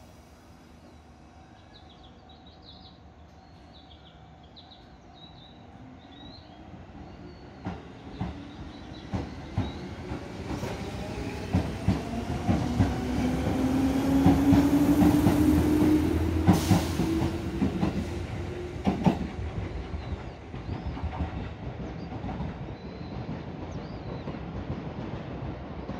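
Seibu 4000 series electric train pulling away. Its motor hum rises in pitch as it gathers speed, and the wheels clack over rail joints from about a third of the way in. The sound is loudest as the cars pass about halfway through, then fades as the train leaves.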